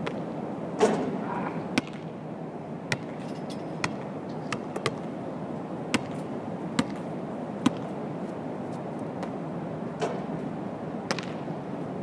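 A basketball thudding on an outdoor court at irregular intervals, about once a second. About a second in there is a louder strike with a short ring as the jump shot hits the hoop. A steady rush of city background noise runs underneath.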